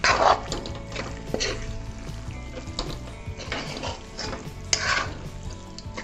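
Steel spoon scraping and stirring prawns in masala around a frying pan: about five strokes, the loudest at the very start and others about 1.5, 3, 3.5 and 5 seconds in. Under the strokes, the prawns sizzle as they fry in oil.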